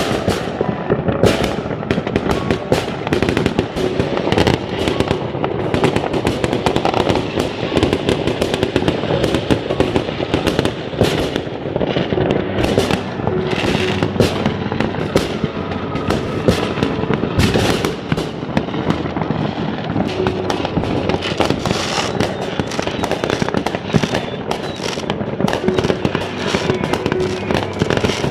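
Fireworks going off in a dense, continuous barrage of overlapping bangs and crackles, with music faintly underneath.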